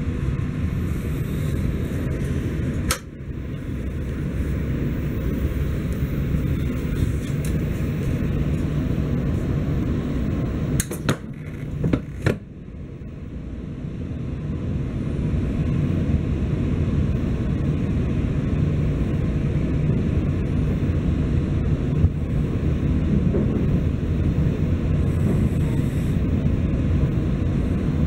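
Steady low rumble of a Shinkansen train running, heard inside the cabin, broken by a few sharp clicks about three seconds in and again around eleven to twelve seconds, each followed by a brief dip in the noise.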